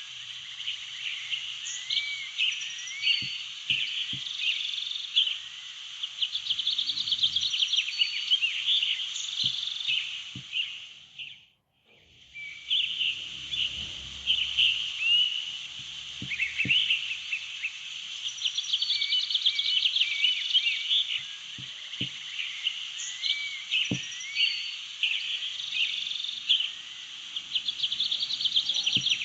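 Ambience of many small songbirds chirping and trilling together, dense and continuous; it fades out and back in about twelve seconds in. A few faint low taps sound now and then.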